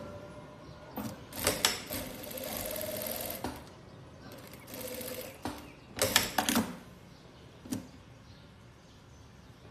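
Industrial sewing machine stitching denim in two short runs, about a second and a half and then about a second long, with sharp clicks before, between and after the runs.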